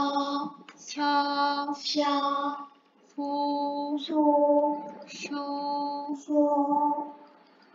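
Speech only: a woman slowly pronouncing the Korean syllables 서, 셔, 소, 쇼 as a pronunciation drill. Each syllable starts with a hissing s and ends in a long vowel held at a steady, sing-song pitch, with short pauses between them.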